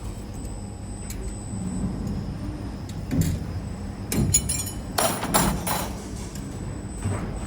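CNC wire forming machine running with a steady hum, broken by sharp metallic clanks and knocks as it forms 4.7 mm wire: one about three seconds in, a quick cluster around four to six seconds, and one more near the end.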